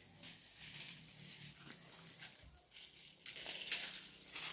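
Dried bean plants rustling and crackling as they are pulled up and handled by the armful, the dry stems and pods crinkling in irregular bursts, louder near the end.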